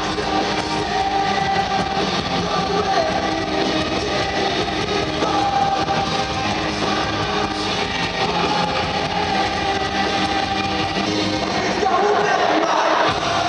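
Rock band playing live with a singer, loud and continuous, with a fuller, brighter swell near the end.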